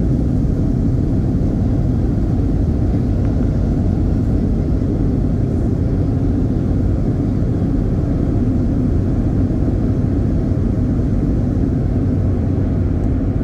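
Steady rumble inside the cabin of a Boeing 737 airliner, from its jet engines and wheels rolling on the runway during the landing rollout with the spoilers deployed.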